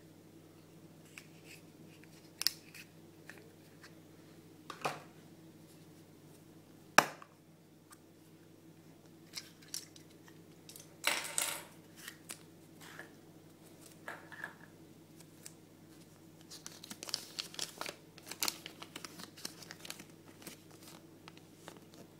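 Small handling sounds of a chocolate surprise egg's yellow plastic toy capsule and its parts: a few sharp clicks and snaps, the loudest about seven seconds in, and a short crinkly rustle around eleven seconds in. Near the end comes a run of paper crinkling as the folded instruction leaflet is opened out.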